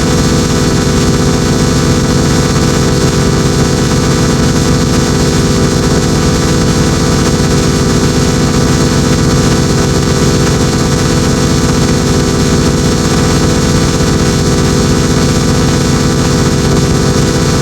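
Many sound effects stacked and played at once into a loud, steady, distorted wall of noise, with many held tones on top of each other and a fast flutter underneath.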